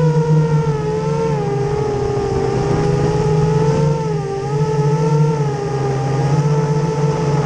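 Brushless motors of a 240 mm FPV racing quadcopter whining under throttle, recorded by the onboard camera, the pitch rising and falling slightly as the throttle changes, over steady propeller and wind noise.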